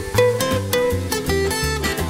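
Background music: a plucked-string melody over a pulsing bass line.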